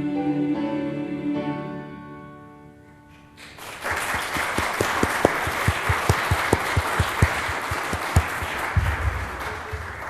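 The last sung notes of a choir fade away. After a short pause the congregation applauds for about six seconds, then the applause dies down.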